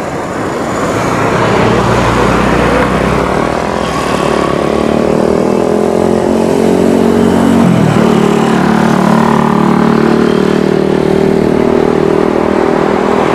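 Boeing 737-900ER's twin CFM56-7B turbofans running at takeoff power, a loud, steady jet noise with a humming tone that dips briefly about eight seconds in.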